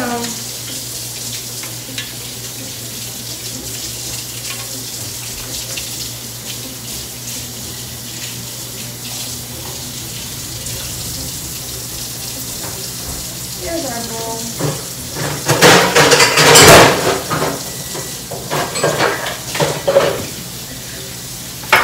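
Kitchen tap running into the sink while a whisk is rinsed clean of butter under it. Louder, irregular clattering comes in the last third.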